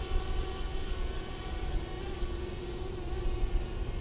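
DJI Spark quadcopter's propellers running with a steady pitched whine as it comes down in a slow descent, with low wind rumble on the microphone.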